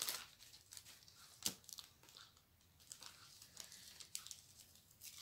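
Small plastic bags of square diamond painting drills faintly rustling and crinkling as they are handled, with one sharper click about a second and a half in.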